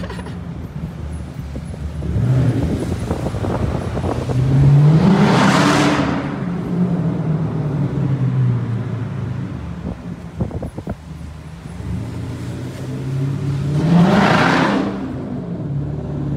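Dodge Challenger R/T's 5.7-litre Hemi V8 accelerating, heard from inside the cabin. The engine note climbs and swells twice, about a third of the way in and again near the end, settling back to a steady cruise between.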